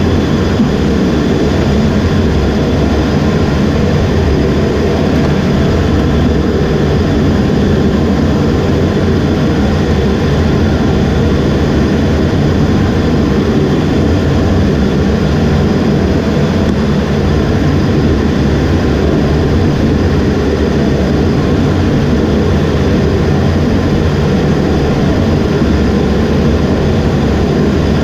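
Steady jet-engine roar from an EA-18G Growler's twin General Electric F414 turbofans at low power while taxiing, heard from inside the cockpit.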